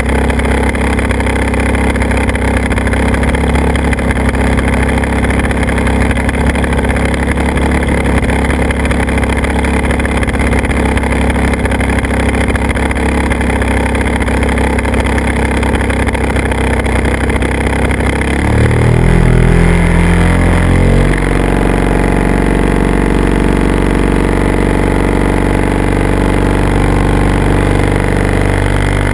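Motor and propeller of a remote-controlled aircraft, heard close up from the onboard camera, running steadily under wind rush. About two-thirds of the way in the pitch shifts and briefly gets louder with the throttle, then settles into a steady drone.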